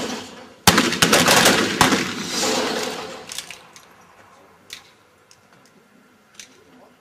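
A volley of black powder pistol shots on a range: several shots go off close together from just under a second in, ringing and fading over about two seconds. Two faint single sharp sounds follow later.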